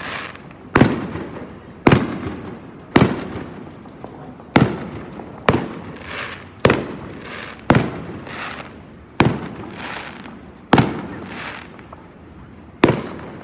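Aerial fireworks display: about ten loud bangs, one every second or so, each trailing off in a rolling echo, with a crackling hiss after several of the bursts in the middle.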